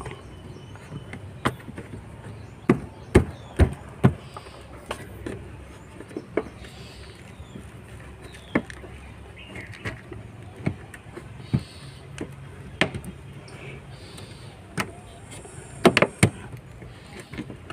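Plastic front wheel-arch liner of a Suzuki S-Cross being pushed back into place behind the bumper by hand: a string of irregular sharp plastic clicks and knocks, roughly one a second, bunched more closely near the end.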